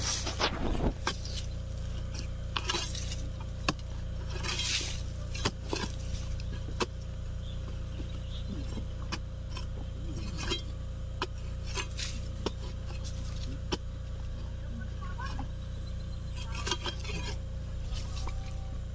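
A long-handled steel spade chopping and scraping into dry, stony soil, with irregular sharp metallic clinks as the blade strikes earth and stones.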